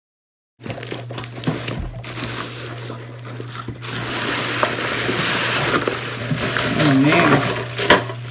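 Cardboard shipping box being torn open by hand and crumpled packing paper pulled out, a dense crackling and rustling with sharp tearing snaps, loudest in the second half. A steady low hum runs underneath.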